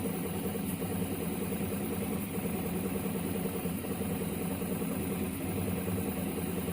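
Prusa MK3S+ 3D printer running a print, its stepper motors giving a steady, busy mechanical whir with several held pitches.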